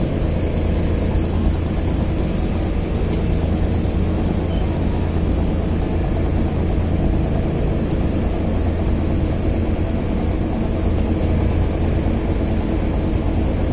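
Ro-ro car ferry's diesel engines running with a steady low drone, heard from the upper deck while the ship manoeuvres toward its berth.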